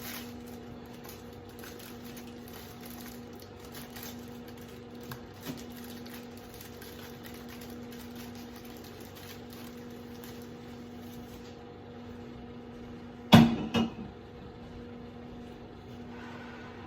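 Steady low kitchen hum, broken near the end by two sharp knocks about half a second apart, as the upturned cake pan is knocked and lifted off a freshly baked pound cake.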